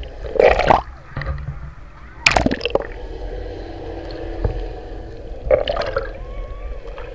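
Water sloshing and gurgling around an action camera dipped under the sea beside a boat's hull, heard muffled, with a steady low hum underneath. Short splashy bursts come about half a second in, a little after two seconds and near the end, as the camera breaks the surface.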